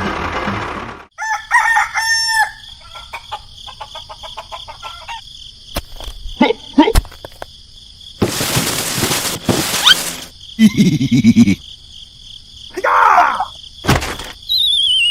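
A rooster crowing, among scattered clicks and a short burst of noise. Near the end comes a falling whistle-like tone.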